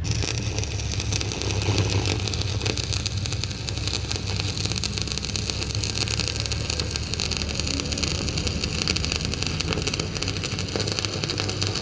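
A machine running steadily, with a low hum under a constant dense crackle.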